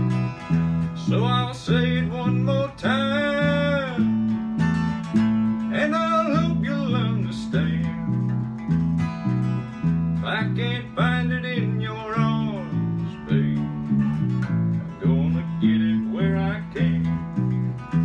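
Acoustic guitar playing an instrumental break in a country song: alternating bass notes and strums keep a steady beat, under a higher melody line of notes that slide up and fall away.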